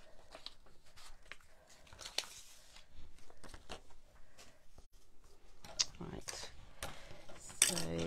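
Paper and card being handled on a craft table: a large grid sheet slid into place and a watercolour card panel set down on it, with light taps, clicks and paper rustles throughout. A brief voice sound comes near the end.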